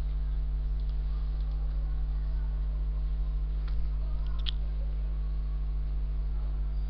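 Steady electrical hum on the recording, with a few faint clicks.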